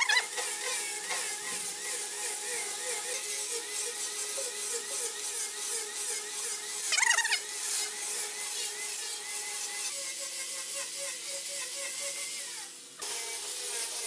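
Handheld electric angle grinder with a sanding disc running against wood: a steady motor whine under the hiss of the disc on the wood. It briefly rises in pitch about seven seconds in and drops away for a moment shortly before the end.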